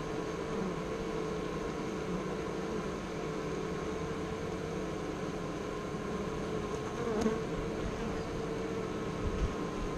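Honeybees buzzing at the hive entrance, a steady hum of many wings as bees fly in and out close by.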